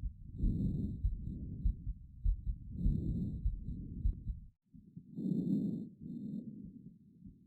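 Breath sounds heard through a stethoscope on the chest during lung auscultation: slow cycles of breathing in and out about every two and a half seconds, each a louder rush followed by a softer one. Low thuds run under the first half, and the sound drops out briefly just past the middle.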